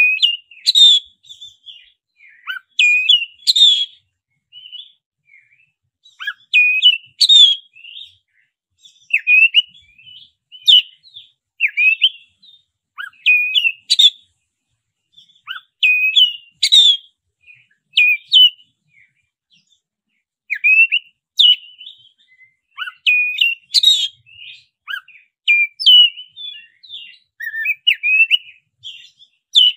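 Black-breasted oriental magpie-robin (kacer dada hitam) singing. Loud whistled phrases with sharp rising notes come every second or two, with short pauses between them.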